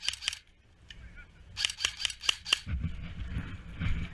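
Airsoft gun firing quick strings of sharp, snapping shots, a few at the start and about six in a row near the middle, at roughly six shots a second. A low rumbling noise of movement follows near the end.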